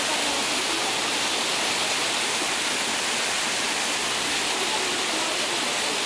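Bakthang Falls, a waterfall cascading in several strands down a rocky, mossy cliff face, giving a steady, even rush of falling and splashing water.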